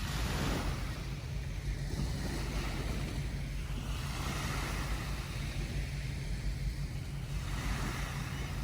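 Ocean surf washing onto a beach in slow swells, with wind rumbling on the microphone.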